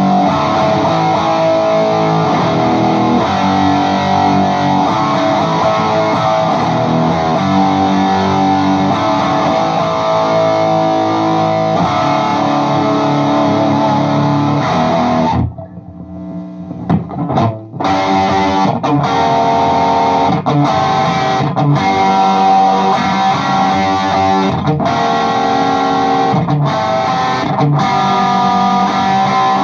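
Tom Anderson electric guitar played through an all-original 1974 Marshall Super Lead 100-watt MKII head, fitted with new filter caps and tubes and run into a Hot Plate attenuator: distorted rock chords and riffs. About halfway through, the playing breaks off for a couple of seconds apart from a few short stabs, then carries on in choppy chords with brief stops.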